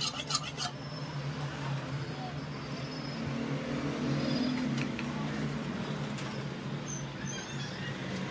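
Background road traffic: a steady low hum, with a vehicle passing and swelling about four seconds in, and a few faint clicks.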